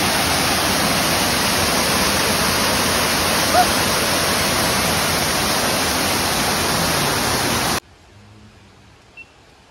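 Waterfall, a steady full rush of falling water close by, with a brief high note about three and a half seconds in. The rush cuts off suddenly near the end, leaving a much quieter background.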